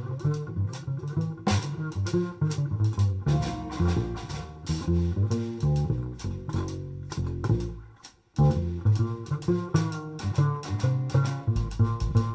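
Jazz quintet playing, with guitar and bass to the fore and drums keeping time. The band breaks off for an instant about eight seconds in, then comes straight back in together.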